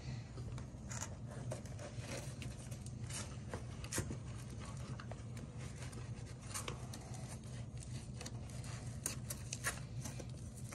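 Scattered soft rustles, scrapes and clicks of a fabric dog bootie being pulled onto a dog's hind paw and handled, over a steady low hum.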